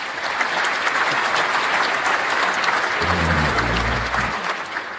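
Applause from an audience, a dense patter of many hands clapping that swells in and dies away at the end, with a brief low rumble under it about three seconds in.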